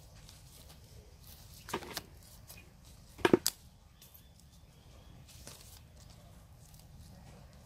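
Polythene grafting strip crinkling and crackling as it is pulled tight and wound around a mango graft, in a few short bursts. A quieter crackle comes about two seconds in and the loudest just past three seconds.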